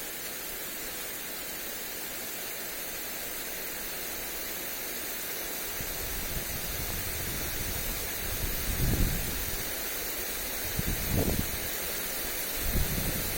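Lawn sprinkler spraying water onto grass with a steady hiss. From about halfway in, wind gusts buffet the microphone with low rumbles, three stronger gusts near the end.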